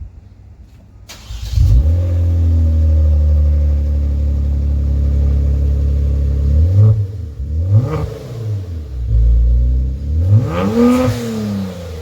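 Kia Stinger V6 running with both mufflers removed: it starts about a second in and settles into a loud, steady idle. It is then blipped, with revs rising and falling twice briefly and once more higher near the end.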